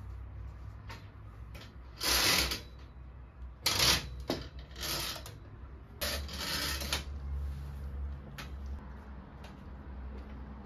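Metal ironing board being unfolded and set up: its steel legs scrape and clank in four short bursts over the first seven seconds, the sharpest near the middle.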